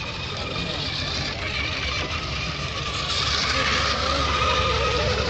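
Several radio-controlled racing hydroplanes running on the water: a steady motor whine that wavers slightly in pitch as the boats go round the course.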